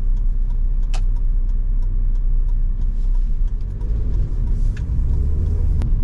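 Car engine and road noise heard from inside the cabin while driving, a steady low rumble. A sharp click sounds about a second in and another near the end.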